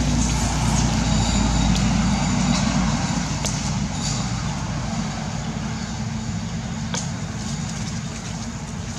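A motor vehicle's engine running with a low, steady hum, loudest for the first three seconds and then slowly fading away.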